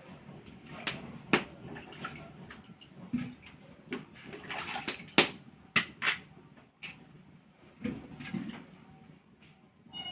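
Water splashing and sloshing, mixed with scattered sharp knocks and clinks, as of things being handled in water.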